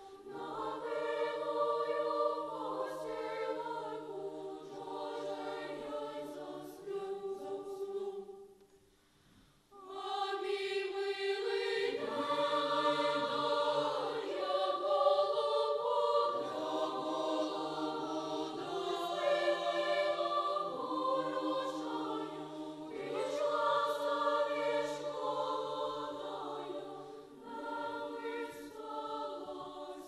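Children's choir singing in several parts, held notes moving together. The singing breaks off for about a second around nine seconds in, then comes back fuller.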